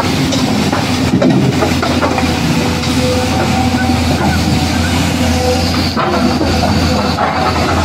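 Heavy vehicle engine running steadily with a constant low hum.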